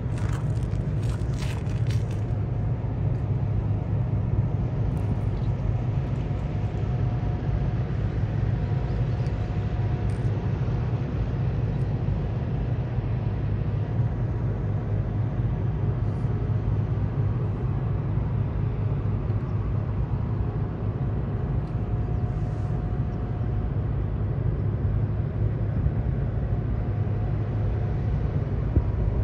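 Steady low rumble of a car ferry's engines and machinery, with a faint even hum over it. A few faint crackles come in the first couple of seconds.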